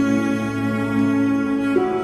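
Slow, sad background music on bowed strings, with long sustained cello notes.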